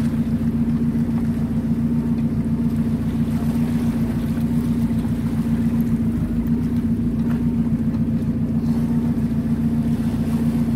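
An engine running steadily at constant speed: an unbroken drone with a strong hum and a fast, even flutter.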